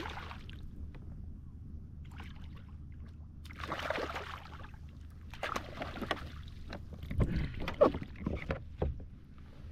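Water splashing beside a kayak in a few short bursts as a small hooked fish thrashes at the surface, followed by a run of knocks and thuds against the hull near the end.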